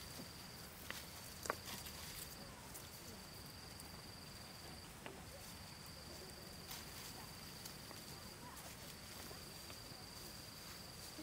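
An insect's steady high trill, broken by short pauses every few seconds, with a few sharp clicks and snaps of dry twigs being gathered, the loudest about a second and a half in.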